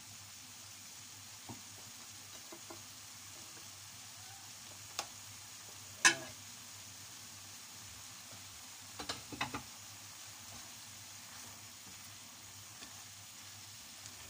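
Vegetables and chicken sizzling faintly and steadily in a frying pan as a wooden spatula stirs them. The spatula knocks against the pan now and then, loudest about six seconds in, with a quick run of knocks a few seconds later.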